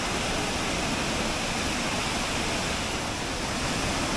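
Devi's Falls, a narrow waterfall pouring into a rock gorge, rushing steadily. Its flow is low in the dry winter season.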